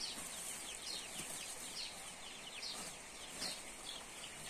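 Young chicks peeping: short, high peeps repeated roughly once or twice a second.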